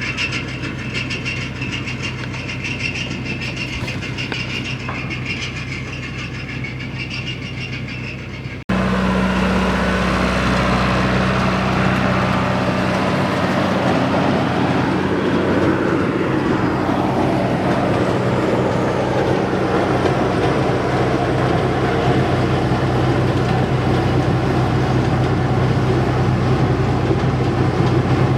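Farm tractor engine running steadily while it drives a round baler. About nine seconds in the sound cuts abruptly to a louder, closer engine.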